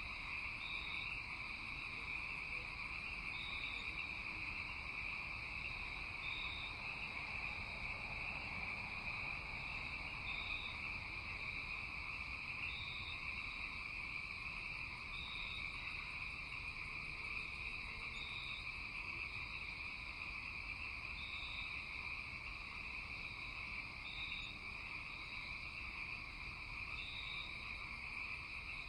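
Night-time chorus of frogs and insects: a steady high trill, with a short higher call repeating about every two to three seconds.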